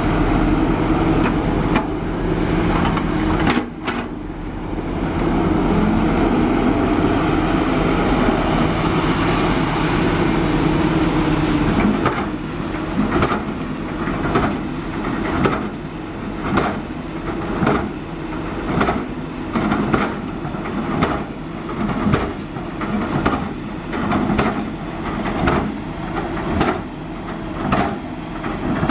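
Kobelco SK350 hydraulic excavator working, its diesel engine running steadily. About twelve seconds in, the steady sound gives way to a regular clanking, a little more than once a second.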